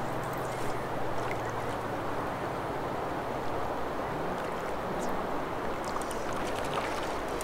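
River current flowing over a shallow riffle: a steady, even rush of water.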